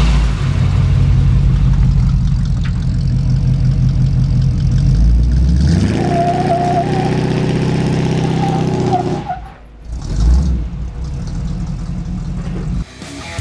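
A carbureted Chevrolet squarebody pickup's engine running through its exhaust: a steady idle, then revved about halfway in and held at higher rpm for a few seconds. It drops back with a short blip of throttle and settles to idle.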